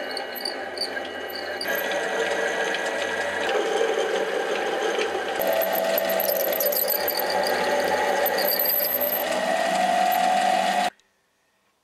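Rotwerk EDM 300 DS mini lathe running with a grooving tool plunge-cutting a groove into a 10 mm bolt blank turning between centres. A whining tone from the cut comes in about halfway and rises slightly near the end, then the sound stops abruptly.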